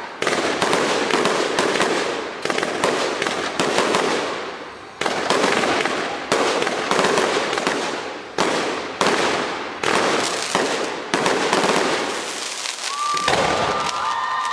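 Fireworks display: shot after shot goes off every second or two, each with a sudden bang that fades away over about a second. A high whistling tone comes in near the end.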